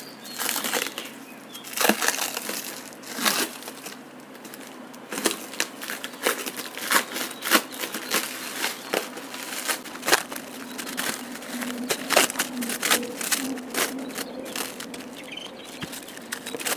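Clear plastic wrapping crinkling and crackling in irregular bursts as hands handle it and peel it off a rolled PVC wallpaper sheet.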